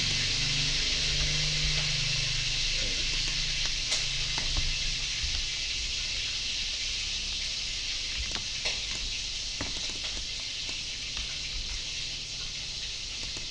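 Steady high-pitched hiss of background noise, with a low hum that fades out in the first few seconds. A few faint clicks, likely computer mouse clicks, come through at about four seconds in and again between eight and ten seconds in.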